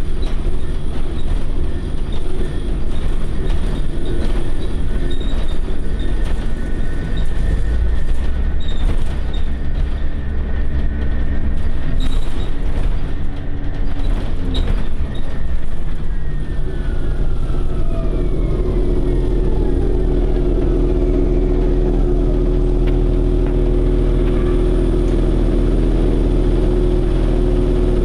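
Interior of a 2009 Orion VII NG transit bus on the move: a dense rumble of road and drivetrain noise with a steady high whine. About two-thirds of the way through, the whines glide down in pitch as the bus slows, and the engine then idles steadily with a low hum.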